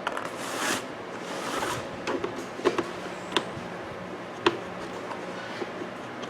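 Hand work on the back of a plastic wall clock while its screws are being removed: two brief scraping swishes early on, then several sharp separate clicks and knocks of tool, screws and case being handled.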